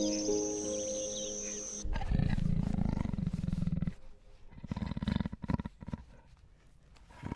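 Big cat roaring: a long, low, rough rumble about two seconds in, followed by a few shorter grunts. Before it, soft piano music and a high insect trill stop abruptly.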